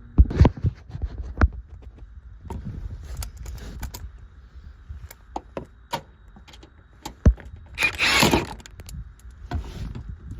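Metal hand tools and parts clinking and knocking: a string of separate clicks and thuds, with a louder rattling scrape about eight seconds in.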